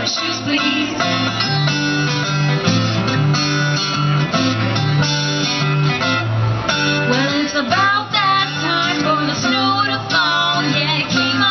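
Live acoustic bluegrass: guitars and a banjo picking a steady tune over a bass line, with a woman's voice singing over it in the second half.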